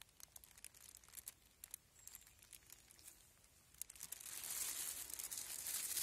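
Rustling of forest undergrowth and leaf litter: scattered light crackles, then a louder, longer rustling in the last two seconds.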